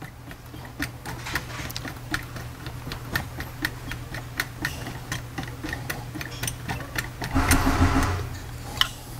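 Hex driver turning the pistol grip screw back into an AR-15 lower receiver: a run of small, irregular clicks as the tool works in the screw head. About seven seconds in there is a louder stretch of handling noise lasting about a second.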